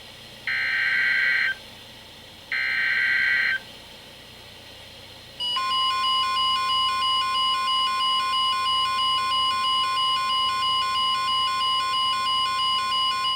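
NOAA Weather Radio SAME alert header: two one-second bursts of warbling digital data tones, a second apart. About five seconds in, the steady 1050 Hz warning alarm tone starts, and the receiving weather radios set off their own rapid pulsing alert beeps on top of it, announcing a flood warning.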